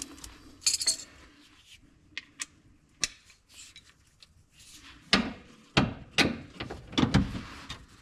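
Metal hand tools and hardware clinking and clanking while working on the shock mounts, with scattered light clicks and then a few heavier knocks in the second half.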